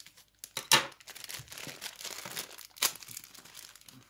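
Clear plastic bag of a model kit's parts crinkling and crackling as it is opened by hand. There are two sharp crackles, the loudest about three-quarters of a second in and another near three seconds in.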